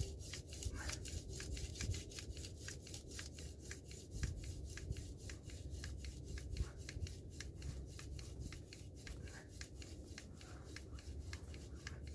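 A friction-fire hand drill spun back and forth between the palms, its spindle grinding into a chaga mushroom hearth. It makes a quick, even rubbing rhythm of about four strokes a second, the steady work of building friction heat toward an ember.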